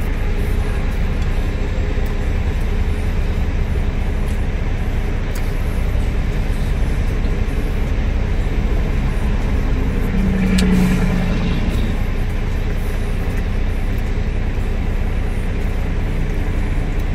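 Steady low engine rumble of a truck idling, heard from inside the cab. A brief louder sound comes about ten seconds in.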